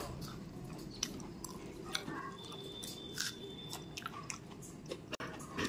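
Close-up chewing of a mouthful of spicy fried pointed gourd, wet mouth sounds with scattered small crisp clicks and crunches.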